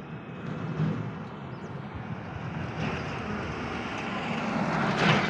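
Noise of a vehicle passing on the road, building to its loudest near the end.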